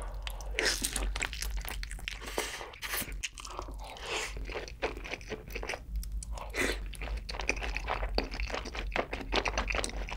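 Close-miked crunching and chewing of sauce-coated Korean fried chicken (yangnyeom chicken), with bite after bite of crackling crust in quick succession. A steady low hum runs underneath.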